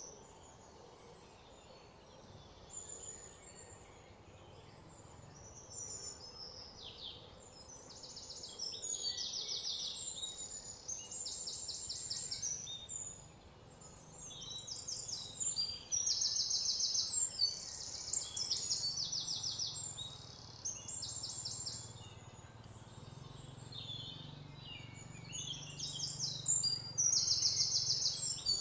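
Birds calling: repeated high-pitched rapid trills, each about a second long, coming more often and louder from about a third of the way in.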